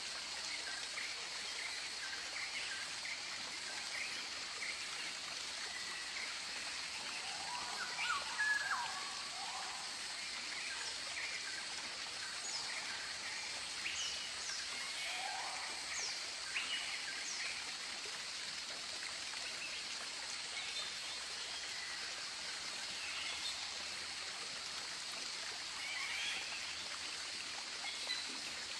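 Tropical birds calling: short repeated notes, quick rising and falling whistles and calls, scattered through the whole stretch over a steady high-pitched hiss.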